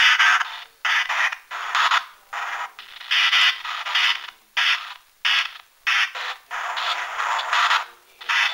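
Spirit box app on a smartphone sweeping through radio noise: choppy bursts of static that cut in and out about twice a second.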